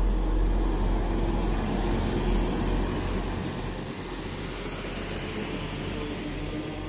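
Northern Class 769 bi-mode multiple unit moving past along the platform: a steady rumble of wheels and running gear with an even underfloor engine drone.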